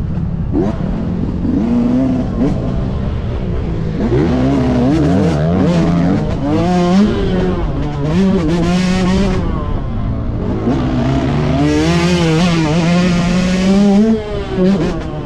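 Yamaha YZ125's two-stroke single-cylinder engine revving hard and shifting through the gears, its pitch climbing and dropping again and again, with one long climb near the end that falls away sharply. Wind rushes over the helmet-mounted microphone.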